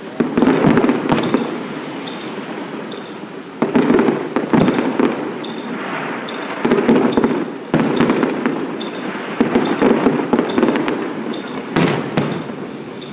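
Fireworks going off: about five loud bangs a few seconds apart, each followed by a burst of crackling that fades.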